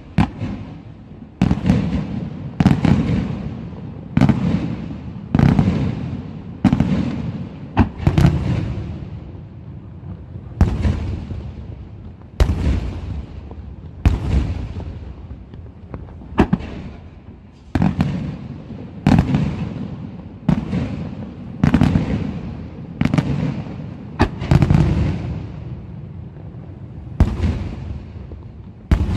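Aerial firework shells from a Senatore Fireworks display bursting in steady succession. There is a sharp bang about every second and a quarter, each followed by a fading low rumble.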